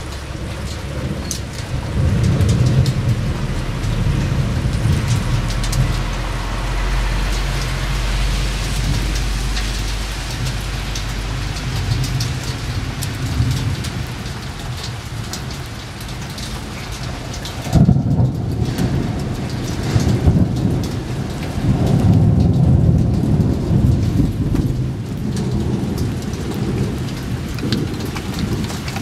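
Thunderstorm: heavy rain hissing steadily, with rolling thunder rumbling low and long. A long deep roll runs from about 6 to 12 seconds, and loud rumbles come again about 18 and 22 seconds in.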